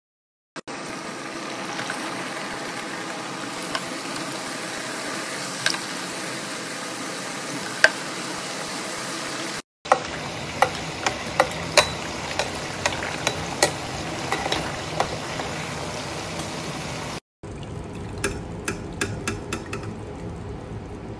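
Pastry cones deep-frying in hot oil in an electric deep fryer: a steady sizzle with sharp crackling pops, cut twice by brief silences. The pops come thickest in the middle and near the end.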